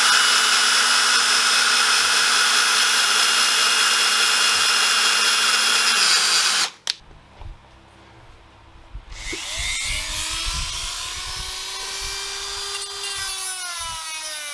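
A drill runs steadily, boring a hole beside the bore of a metal alternator pulley, and stops abruptly about six and a half seconds in. After a short pause, a small high-speed rotary tool spins up with a wavering pitch as it grinds at the bore to cut a keyway.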